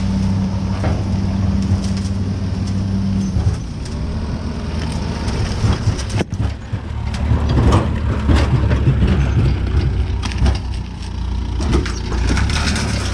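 An engine running steadily, its hum changing about three and a half seconds in, with scattered knocks and clatter over it.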